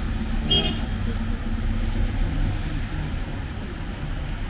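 City road traffic: vehicle engines running steadily, with a short high-pitched sound about half a second in.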